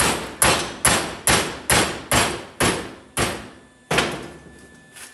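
Hammer blows on a metal pin, bending its end over: about nine sharp strikes, a little over two a second, slowing slightly and stopping about four seconds in.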